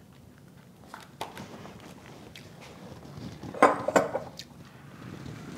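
Large glass jars being handled and set on a stone countertop: a few light knocks about a second in, then a louder cluster of clunks and clinks around three and a half to four seconds in.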